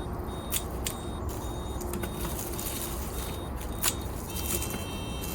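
Hand shears snipping through shallot tops: three sharp snips, two close together near the start and one near the end, over a steady low rumble.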